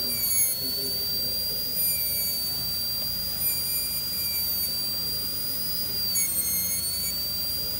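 High-speed air-turbine dental handpiece with a diamond bur, giving a steady high whine as it grinds the side of a model abutment tooth to flatten a guiding plane. The pitch dips briefly about six seconds in.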